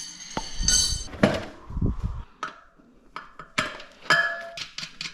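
Steel tyre levers clinking against a motorcycle wheel rim and against each other while the tyre bead is worked over to reach the inner tube. A ringing metal clink near the start, a few dull thuds, then a string of sharp clicks and knocks.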